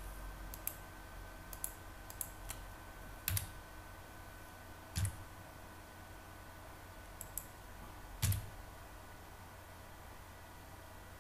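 Computer keyboard and mouse clicks, about nine sharp clicks at irregular intervals. Three louder ones, about a third, halfway and three quarters through, carry a dull low knock. A faint steady hum runs underneath.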